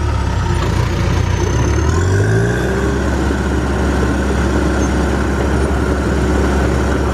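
Caterpillar D5 bulldozer's diesel engine running under throttle, rising in pitch about two seconds in, then holding steady.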